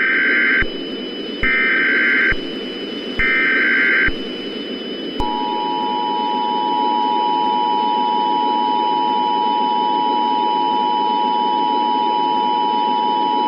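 Emergency Alert System tones: three short bursts of SAME header data, each just under a second, then a steady two-tone attention signal held for about eight seconds and cutting off sharply, all over a constant hiss of static.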